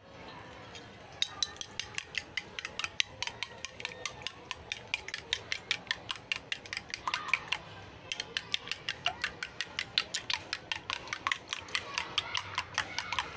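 Eggs being beaten in a ceramic bowl, the utensil clicking quickly and evenly against the bowl at about six or seven clicks a second. The clicks start about a second in and break off briefly about eight seconds in.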